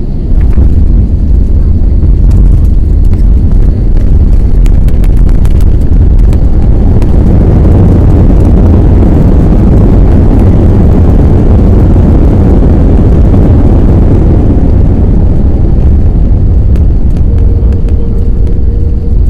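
Airbus A321neo during landing, a loud steady low rumble with a broad rush of engine and air noise that swells up and dies away over the middle stretch. Light rattling clicks come in the first few seconds, and a brief steady hum near the end.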